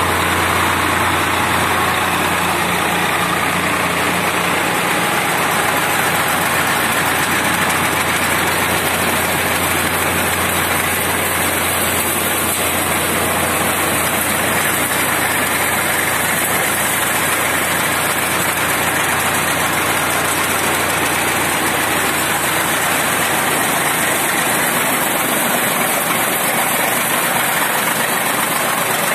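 Tractor engine running steadily, driving a PTO chaff cutter, with the cutter's whirring noise. A low hum underneath weakens a few seconds before the end.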